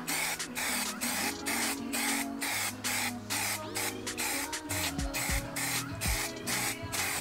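Aerosol spray-paint can hissing as paint is sprayed onto an alloy wheel, with background music.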